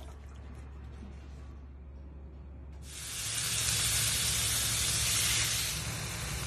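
Marinated chicken sizzling on a hot cooking surface: a loud, even hiss that starts suddenly about three seconds in, after a faint low hum.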